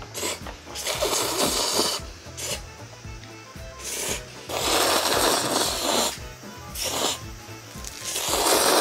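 A person slurping noodles with chopsticks: several long, raspy slurps, each up to about a second and a half, with short pauses between them. Background music plays underneath.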